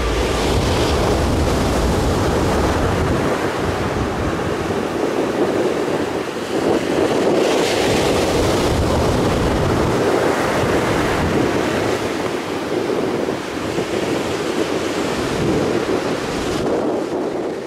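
Heavy surf breaking on a beach in rough, windy seas, with wind buffeting the microphone: a steady, loud rush of noise.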